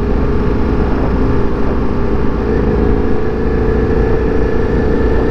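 Motorcycle engine running steadily at low town speed, with wind and road noise, heard from the rider's own bike.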